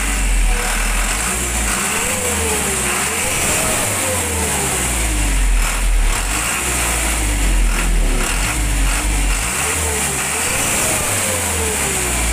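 Isuzu Elf truck's diesel engine running, heard from under the truck beside the newly fitted flexible exhaust section, with its revs rising and falling a few times. The flexible pipe replaces a broken one that had made the exhaust sound rough and the engine pull weakly.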